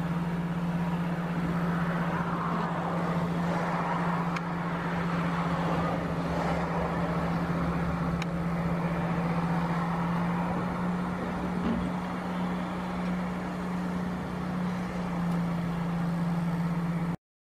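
A car on the road, heard from inside: a steady engine drone with tyre and road noise at a constant level. It cuts off abruptly just before the end.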